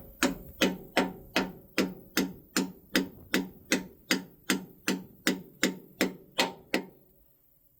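Hammer tapping a metal cylinder pivot pin to drive it out of its mount on a skid steer. About eighteen sharp, evenly paced strikes come at roughly two and a half a second, each with a short ring, and stop about seven seconds in.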